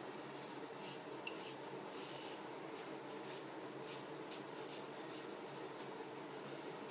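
Merkur Progress adjustable double-edge safety razor with a Feather blade scraping through lathered stubble on the neck: a series of short, faint rasping strokes.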